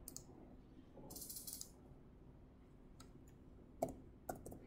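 Faint clicking of a computer mouse, with a short run of rapid ratchet-like ticks about a second in and a few separate clicks near the end.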